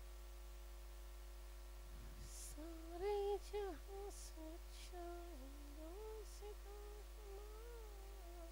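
A person softly humming a tune: held notes that step and bend in pitch, starting a couple of seconds in. A few short, faint hissing sounds occur alongside.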